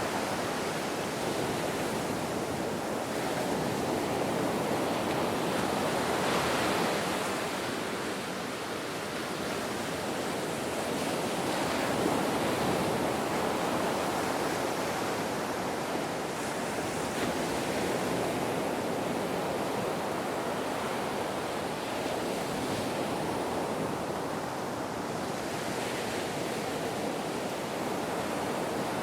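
Ocean waves breaking on a beach: continuous surf wash that swells and eases every few seconds.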